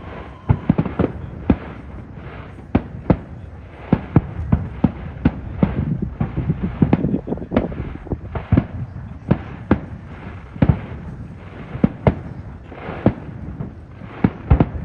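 Fireworks display: an irregular barrage of sharp bangs from bursting aerial shells, often two or three a second, over a continuous rumble that thickens for a couple of seconds about halfway through.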